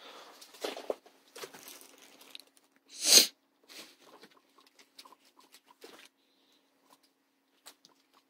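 A plastic bag and newspaper cage bedding rustling and crinkling while a guinea pig cage is cleaned out. There is one loud crinkle about three seconds in, then scattered light clicks and scuffs.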